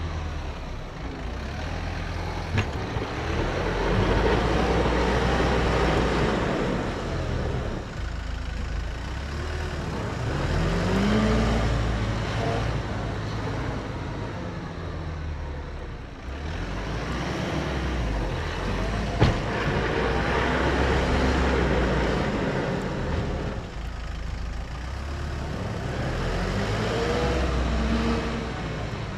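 Kubota M5-091 tractor's four-cylinder diesel engine working as it pushes snow with a front snow pusher, its pitch and loudness rising and falling several times as it drives back and forth. There are two sharp knocks, one about two and a half seconds in and one about nineteen seconds in.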